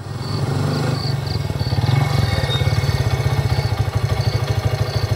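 Honda motorcycle engine running as it rides along, a steady low sound with a fast even pulse.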